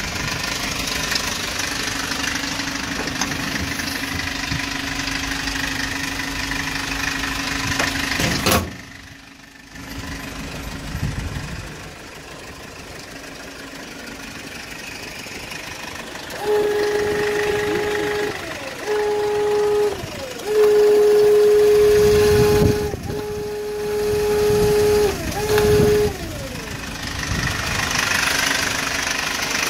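Kia Bongo III wrecker truck's engine running at idle, with a sharp click about eight seconds in. Later a loud steady whine starts and stops five times, each stretch lasting one to three seconds and falling in pitch as it cuts out.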